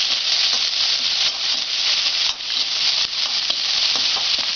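Chopped onion frying in hot oil in a pan: a steady sizzle.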